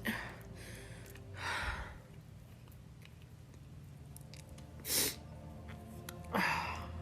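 A woman sneezing repeatedly: about four short, sharp sneezes spread over a few seconds, the strongest near the end.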